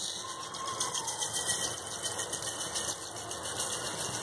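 Granulated sugar poured in a steady stream from a container into a nonstick pan of water: a continuous grainy, hissing patter of falling granules.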